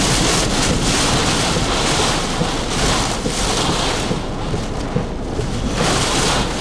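Severe thunderstorm winds gusting hard, a loud rushing roar with wind buffeting the microphone. The gust eases for a couple of seconds about four seconds in, then picks up again near the end.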